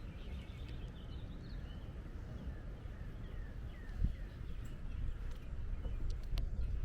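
Small birds chirping, with a run of short, falling notes in the middle, over a steady low rumble. A couple of sharp clicks come near the end.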